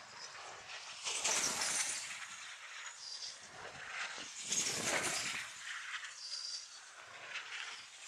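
Dynamic D60 RC glider dynamic soaring at high speed, its airframe whooshing through the air in repeated passes that swell and fade, the loudest about a second in and again about halfway, some carrying a faint high whistle.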